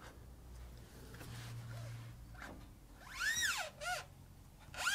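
Screeching from the steering tube of a Piaggio Ape Classic 400 where it passes into the cab, as the front wheel is turned toward full lock: a pair of squeals that rise and fall in pitch about three seconds in, and another near the end. It is just the tube rubbing at its entry into the cab.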